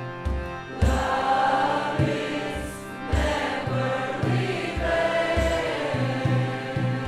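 Kirtan mantra chant: women's voices singing a flowing melody over a steady harmonium drone, with a hand drum beating low, regular strokes about once or twice a second.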